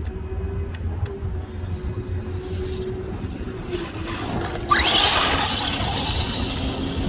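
Arrma Typhon 3S RC buggy's brushless motor whining faintly as the car runs. About two-thirds in it gets suddenly louder: the whine rises in pitch as the car accelerates hard, with a loud rush of tyre and ground noise.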